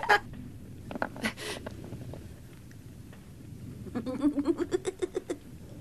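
Boys snickering: a few short chuckles about a second in, then a quick run of giggling laughter, about eight pulses a second, starting about four seconds in.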